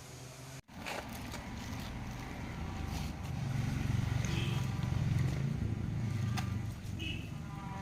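An engine running steadily at low speed, getting louder through the middle, with a few faint clicks.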